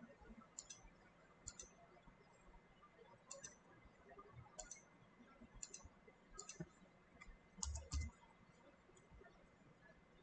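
Faint computer mouse clicks: about eight quick press-and-release ticks at uneven intervals, with one louder dull knock near the end.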